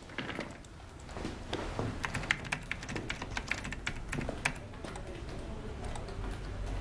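Typing on a computer keyboard: quick, irregular key clicks starting about a second in, over a faint low hum.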